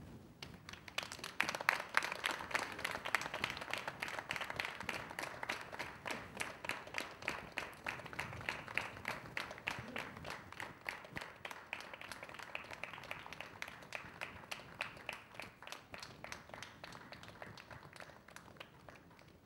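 A small audience applauding. It starts about a second in, is loudest soon after, and thins out toward the end.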